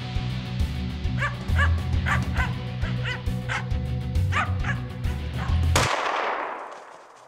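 Finnish Spitz barking in quick repeated barks, bark-pointing a capercaillie treed above it, then a single loud rifle shot about six seconds in that echoes and fades.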